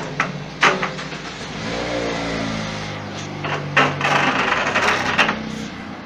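Several sharp metal knocks and clinks from parts and tools being handled, over a steady motor-like hum whose pitch slides down about two seconds in.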